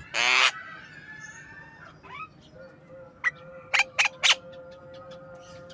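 Javan myna calling: a loud harsh squawk right at the start, then a short falling note and a quick series of four short sharp calls about three to four seconds in.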